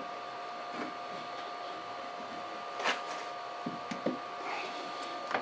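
Wooden beams being set in place by hand, giving a few light knocks of wood on wood, the clearest about three seconds in. A steady two-tone hum runs underneath.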